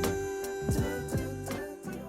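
Background music with plucked guitar and steady beats, fading out at the end.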